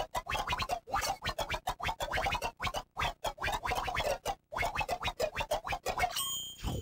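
Comic sound effect under a fast-motion sequence: a rapid, jittery, scratchy chatter of very short bits with wobbling pitch, like sped-up audio. Near the end it gives way to a short bright chime.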